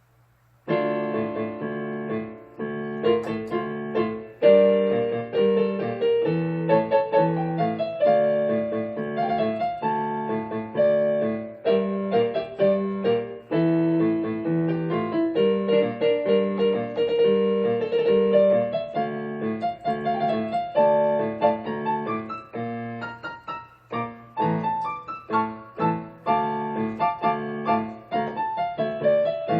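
Piano-toned keyboard playing the instrumental introduction of a slow song, chords and a melody line, starting about half a second in.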